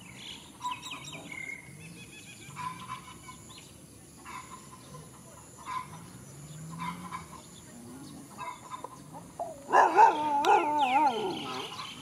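Short bird chirps every second or two, then, nearly ten seconds in, a loud, wavering, growl-like dog vocalization lasting about two seconds, much louder than the chirps.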